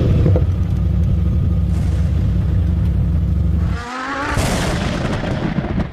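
A deep, steady car-engine rumble that cuts off abruptly about four seconds in, followed by a rising revving whine with a rush of hiss that fades out at the end.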